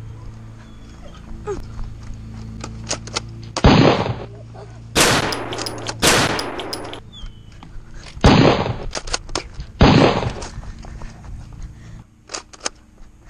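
Nerf foam-dart blasters firing: five sharp shots, each a loud pop with a short rush of air, at irregular intervals, with small plastic clicks between them.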